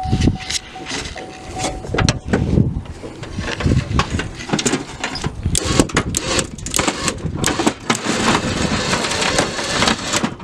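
A car winched off a trailer: repeated knocks, clanks and rattles over a rough rushing noise that grows thicker after about four seconds, with a thin steady whine in the first second or so.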